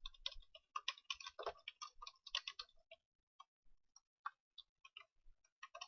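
Faint computer keyboard typing: a quick run of key clicks for about three seconds, then a few scattered clicks.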